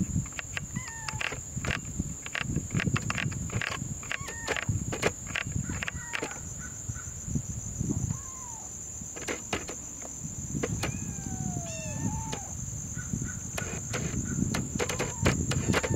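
Clicks from the command dial of a Sony Alpha A57 being turned to work its digital zoom, picked up by the camera's built-in microphone along with low handling rumble. A steady high-pitched buzz and a few short chirps sound behind.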